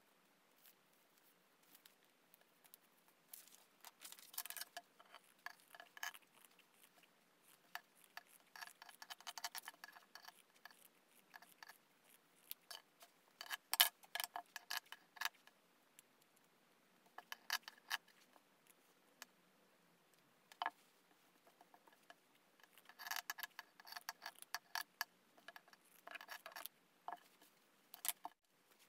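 Scissors cutting through quilted fabric: several short runs of quick snipping clicks, with pauses between them.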